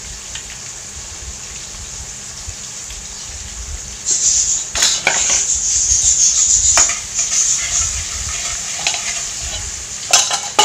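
Chopped onions sizzling in hot oil in a metal kadhai, being fried to brown, while a slotted metal spatula stirs them and scrapes against the pan. The sizzling and scraping get louder about four seconds in, with a few sharper scrapes there and near the end.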